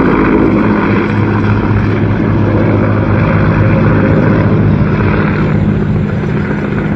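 Mi-17 military transport helicopter flying past: a steady, loud rotor and turbine drone with a low hum, easing off slightly near the end as it draws away.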